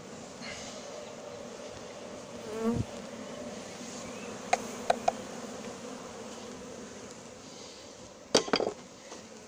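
A swarm of honeybees buzzing steadily around a freshly stocked hive as the transferred colony regroups. About two and a half seconds in, one bee passes close by with a buzz that swells and bends in pitch. Three sharp clicks come around the middle, and a louder clatter of knocks comes near the end.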